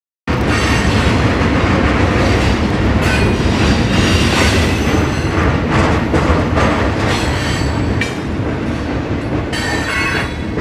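Freight train of hopper cars rolling past: a steady rumble with the clatter of steel wheels on the rails, cutting in suddenly just after the start.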